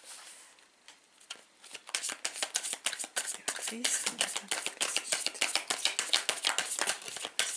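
A deck of tarot cards being shuffled by hand: a fast, dense run of soft card clicks and slaps that begins about two seconds in and keeps going.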